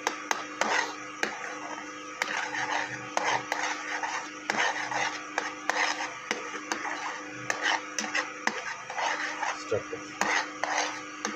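Metal spoon stirring and scraping in a steel frying pan of thick tomato sauce, an irregular run of clicks and scrapes against the pan, over a steady low hum.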